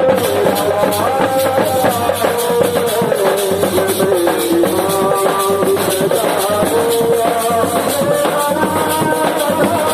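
Music: a sustained melody line over a steady percussion beat with a shaker-like rattle.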